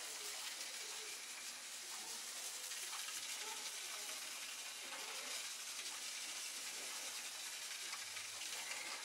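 Fine sifted dirt shaken through a colander screen and falling onto a scenery board as a steady, soft hiss.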